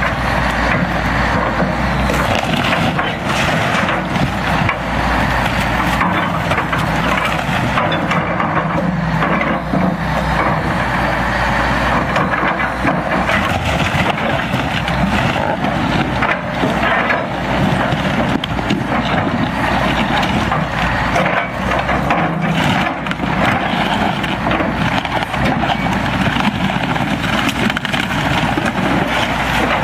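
An excavator bucket crushing a small motorboat, the hull and cabin breaking up in a continuous run of cracking and crunching over the excavator's running diesel engine.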